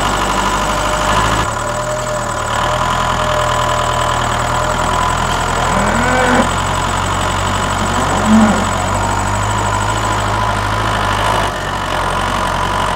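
Tractor engine running steadily at a low chug, with a couple of short rising-and-falling sounds over it about six and eight seconds in.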